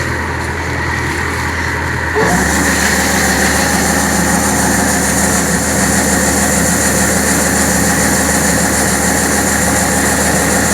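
WORLD 4LZ-4.0E combine harvester running steadily: its 88 hp engine and machinery make a continuous mechanical drone. About two seconds in, the sound steps up, louder and brighter, with a high hiss joining it.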